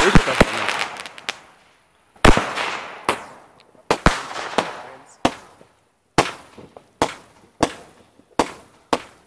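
Fireworks going off: a string of about a dozen sharp bangs, each dying away quickly, coming roughly every three-quarters of a second after a brief pause about two seconds in.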